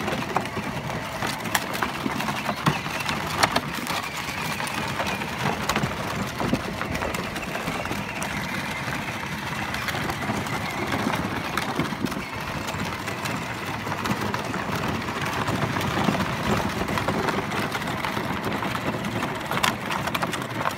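Battery-powered ride-on toy quad driving over dirt: the steady whine of its electric drive motor and gearbox, with a crackle of plastic wheels rolling over dirt and small stones.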